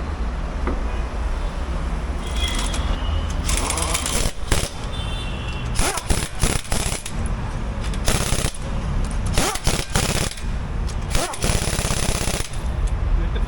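Pneumatic impact wrench running on a car's wheel nuts in about five short rattling bursts, tightening them one after another.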